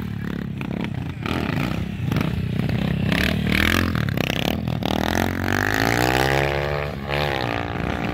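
Motorcycle engine revving: its pitch climbs steadily from about halfway through, drops sharply near the end, then climbs again.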